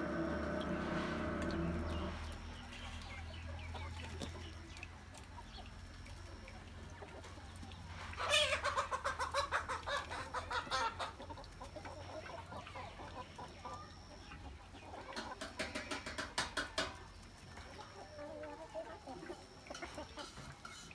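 A flock of chickens clucking, with two loud bursts of fast, repeated cackling partway through.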